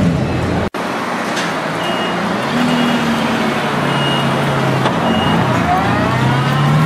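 Mercedes-Benz CLK GTR's V12 running at low revs as the car creeps forward, its note rising and falling with light throttle. A vehicle's reversing beeper sounds a short high beep about once a second, and the sound cuts out briefly under a second in.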